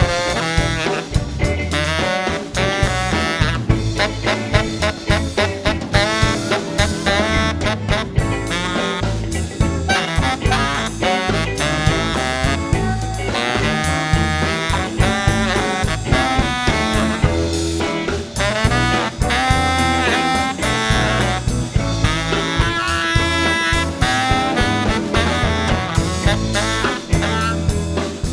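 Live R&B band playing an instrumental passage with horns, saxophone among them, over a steady bass groove.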